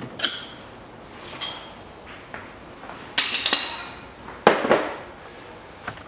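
Steel hand tools clinking: a long socket bar and 30 mm socket being worked off and handled at a car's front hub nut. A few sharp metallic clinks that ring briefly, the loudest cluster a little past halfway, then a duller knock.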